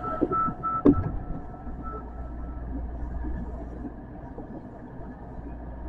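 Steady low hum of a subway train standing at a station platform, heard from the cab, with a thin tone that fades out in the first couple of seconds and a single knock about a second in.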